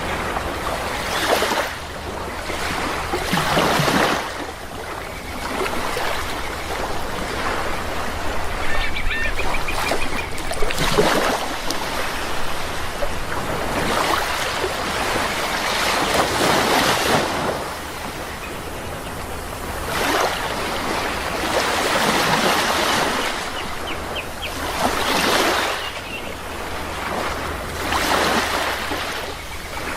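Sea waves washing ashore, the wash swelling and falling every few seconds. A few short bird calls come through about a third of the way in and again near the end.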